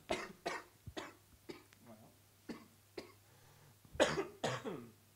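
A man coughing repeatedly into a handheld microphone: a fit of short coughs about every half second, with two louder ones about four seconds in.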